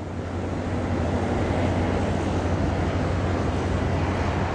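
A steady low engine drone under an even hiss, fading in over the first second.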